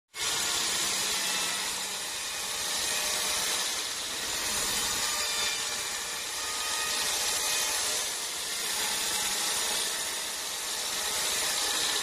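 Band sawmill blade cutting lengthwise through an African acacia log: a steady hissing rasp that swells and eases gently every couple of seconds.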